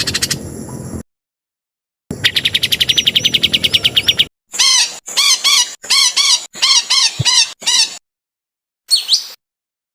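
Spliced recordings of songbird calls with abrupt silent gaps between them. First a fast, even trill of about ten notes a second, then a series of rising-and-falling chirps, then a few sharp downslurred whistles near the end.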